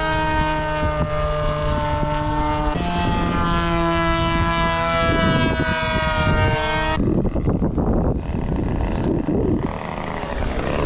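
Engine of a radio-controlled model airplane flying overhead, a steady droning tone that shifts pitch about three seconds in. About seven seconds in it gives way to a rougher, noisier sound.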